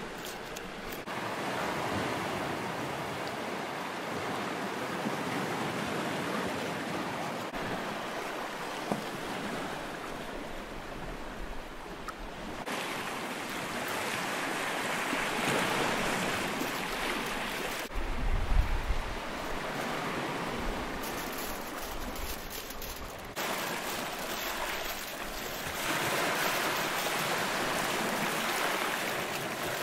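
Sea waves washing over rocks and pebbles, a steady rush of surf that shifts in level and tone several times, with a brief low rumble about 18 seconds in.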